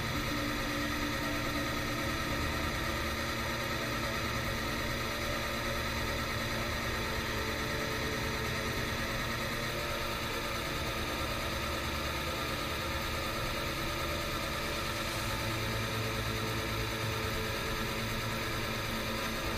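Bench oil lubricity tester running: its electric motor spins a steel wheel through a bath of motor oil while a bearing is pressed against the wheel under load, giving a steady mechanical running hum with metal rubbing on oiled metal.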